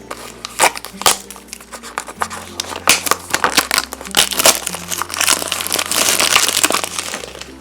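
Plastic toy packaging being crinkled and handled in quick, irregular crackles, densest near the end, as a Shopkins in a Basket surprise pack is opened. Light background music runs underneath.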